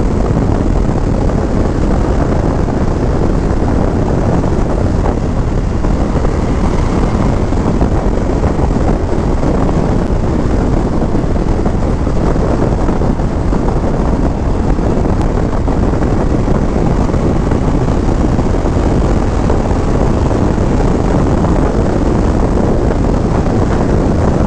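Indian Scout 101's liquid-cooled 1250 V-twin running steadily at highway speed, mixed with heavy wind rush over the microphone.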